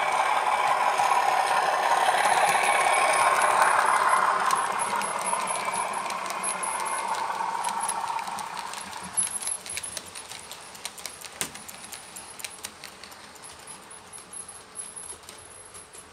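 Model railway train, a Class 37 diesel locomotive hauling coaches, running past: a steady running noise swells for about four seconds, then fades. From about halfway on, light irregular clicking from the coaches' wheels on the track takes over and dies away.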